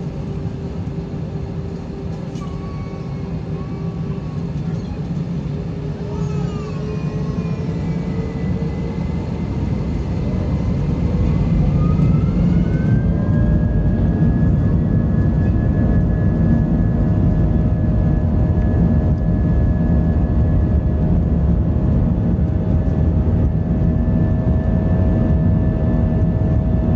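Airbus A320's jet engines spooling up to takeoff thrust, heard inside the cabin: a low rumble grows louder over several seconds as a whine rises in pitch about ten seconds in, then holds at a steady high pitch over a loud, even rumble.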